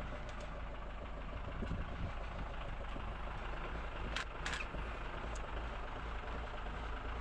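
Two short metallic clinks about four seconds in, as tools work on an engine mount being unbolted, over a steady low machine hum.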